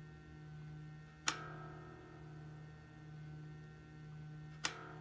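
A low electric bass note held ringing on the fretless bass while the string is brought up to pitch, with two sharp clicks, one about a second in and one near the end.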